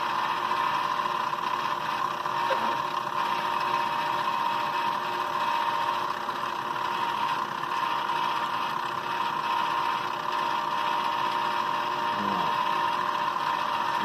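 Benchtop milling machine running with a steady high whine, its four-flute end mill shaving the molded details off a plastic model locomotive shell.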